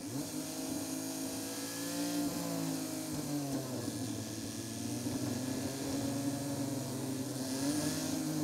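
Seat Ibiza engine running as the car drives, its pitch climbing under acceleration, falling away about two and a half seconds in, then climbing again near the end, over a steady hiss.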